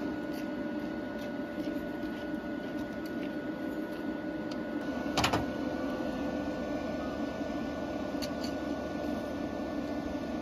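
Steady mechanical hum of a running machine, with constant tones over a low whir, and a single knock about five seconds in.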